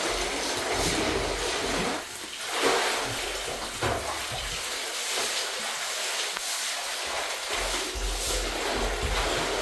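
Water running with a steady rushing sound.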